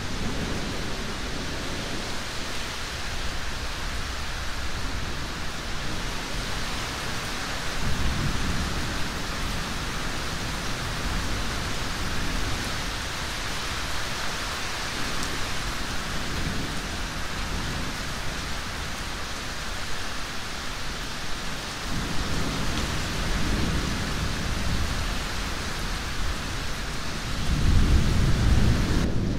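Steady rain with thunder rumbling low in the background, swelling a few times. The loudest roll comes near the end.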